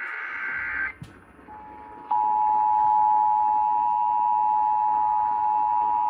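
Emergency Alert System Required Monthly Test received off AM radio. The last burst of the buzzing SAME data header stops about a second in, and after a short gap the two-tone EAS attention signal (853 and 960 Hz) comes in faintly, turns loud about two seconds in and holds steady.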